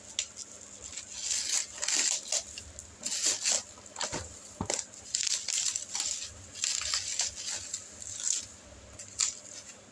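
Plastic wrapping being pulled off a boxed action figure: irregular bursts of crinkling and crackling.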